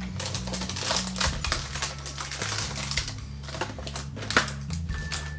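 Hands rummaging through craft supplies: a quick, irregular run of small clicks, taps and rustles of paper and plastic, with a few louder ticks.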